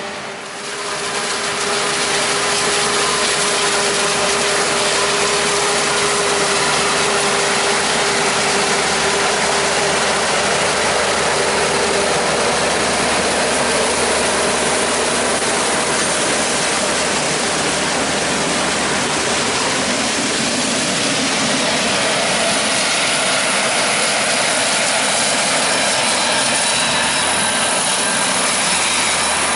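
Claas Jaguar 970 forage harvester chopping corn, its engine and cutterhead running loud and steady, together with tractors pulling silage wagons alongside.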